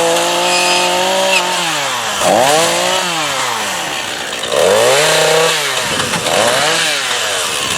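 Chainsaw running at high revs, its engine pitch sagging and climbing back up several times, as when the throttle is eased and squeezed again or the chain bogs and recovers in the wood.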